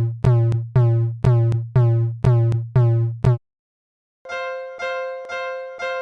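Japanese railroad crossing warning bell ringing at about two strikes a second over a low hum. It cuts off a little past halfway. After a short silence a different crossing bell, with a higher and more sustained ring, takes up the same beat.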